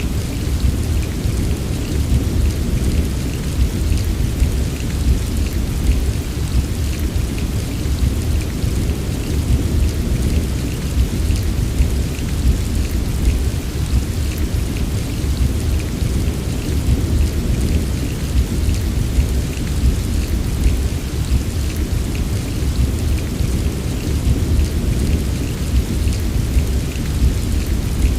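Steady rain, a continuous hiss of falling water with fine ticks of individual drops, over a constant deep rumble.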